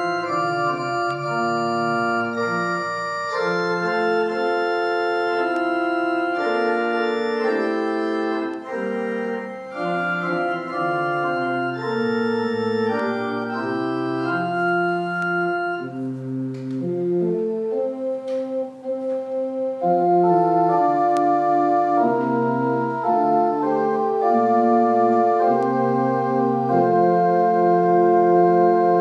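Church organ playing sustained chords that change every second or so. It grows softer and more detached in the middle, then louder about two-thirds of the way through, with its held notes wavering.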